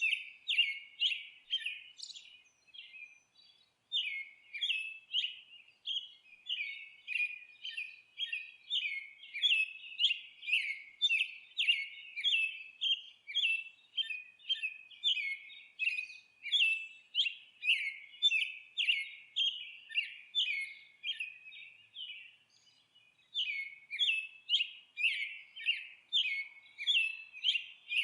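Birds chirping and singing: short, quick notes repeated about twice a second, with two brief lulls, one about three seconds in and one past the twenty-second mark.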